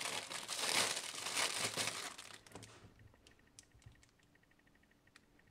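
Clear plastic bag crinkling as a small black plastic quadcopter frame is pulled out of it, dying away after about two and a half seconds. Then a few light, sharp plastic clicks as the bare frame is handled.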